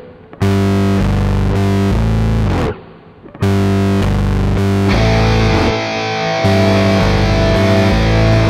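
Rock music with heavily distorted electric guitar chords and bass. It breaks off briefly near the start and again about three seconds in, and gets fuller from about five seconds in.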